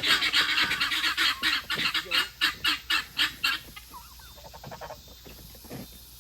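A flock of domestic fowl calling loudly in a rapid run of harsh, repeated calls that stops abruptly about three and a half seconds in. Softer scattered calls follow.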